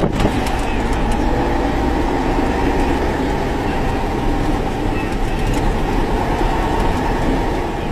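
Steady engine drone and road noise of a vehicle driving, heard from inside the cab.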